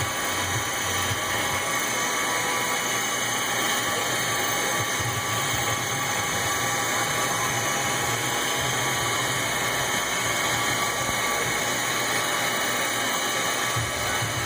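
A machine tool running during machining, giving a steady, unbroken noise that does not change in level.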